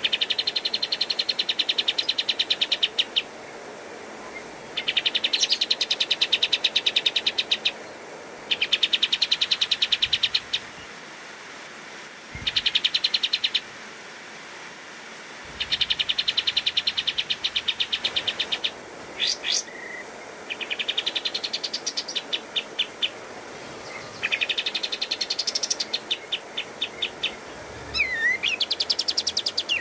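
Olive-winged bulbul (kapas tembak) singing in rapid-fire staccato runs of short, sharp notes, the 'tembakan' delivery, in phrases of one to three seconds with short pauses between. In the second half some phrases turn to slower, rising slurred notes.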